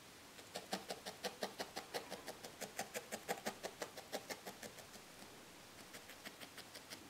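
Felting needle jabbing rapidly into wool over a foam felting pad: a faint, fast run of short pokes, about six a second, growing weaker after about five seconds.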